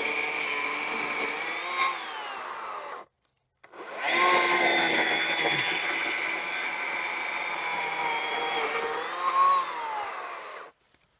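Atlas 80V battery-powered electric chainsaw cutting a notch into a tree trunk for felling, its motor whine dipping in pitch as the bar loads in the wood. It stops about three seconds in, starts again a moment later, and stops shortly before the end.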